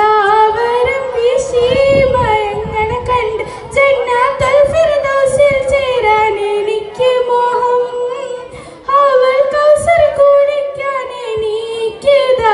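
A girl singing solo into a microphone, an Islamic devotional song for the Prophet's birthday, with long wavering held notes and no accompaniment.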